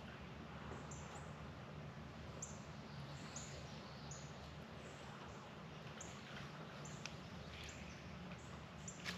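A small bird giving short, high, repeated chirps, each sliding down in pitch, roughly every half second to a second.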